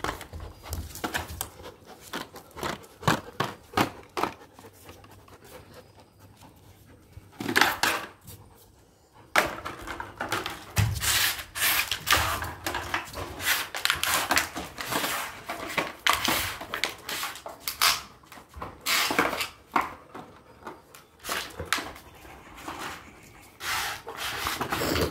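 Black Labrador panting rapidly as it plays, mixed with scuffs and knocks from the hard chew it grabs at and carries, with a short lull about a third of the way in.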